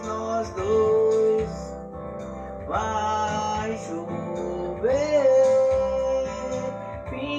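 A man singing with long held notes, accompanied by his own classical nylon-string guitar.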